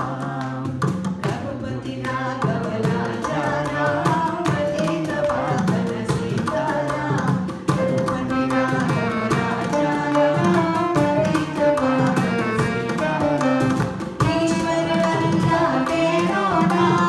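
A woman singing a Hindu devotional bhajan into a microphone in Carnatic style, over steady mridangam drumming, with ensemble accompaniment.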